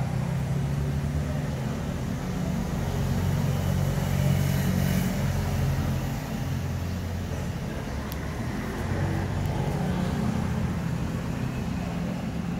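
Street traffic: cars and motor scooters running on the road, a steady low engine rumble that swells twice as vehicles pass.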